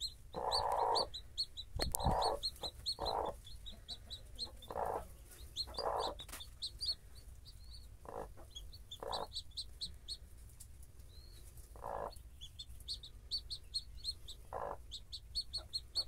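Newly hatched caipira chicks peeping steadily in short, high, rising notes, several a second, while the broody mother hen gives short harsh clucks every second or two.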